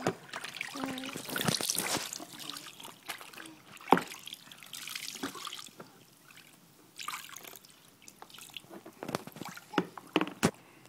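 Bathwater splashing and trickling in a plastic infant bathtub around a baby, in irregular bursts with small drips and clicks.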